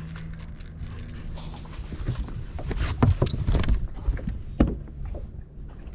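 Handling noise on a fishing boat as a bass is brought aboard: irregular knocks, thumps and water noise, the sharpest knock about four and a half seconds in. A low steady hum dies away about a second in.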